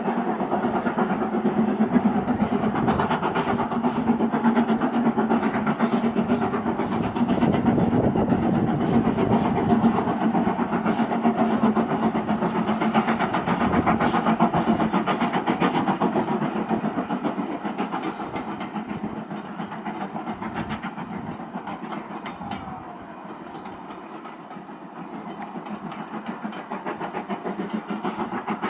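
Steam locomotive hauling passenger coaches, its exhaust and running gear giving a steady, rapidly beating noise. The sound fades a little over halfway through, then grows again near the end.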